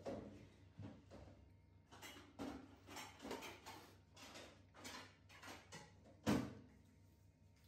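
Light knocks and clicks of strawberries and a plastic plate being handled on a plastic stool by a young macaque, a few small taps a second, with one sharper knock about six seconds in.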